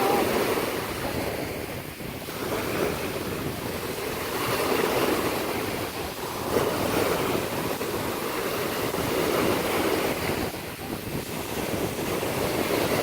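Surf washing ashore in swelling, ebbing waves, with wind buffeting the microphone.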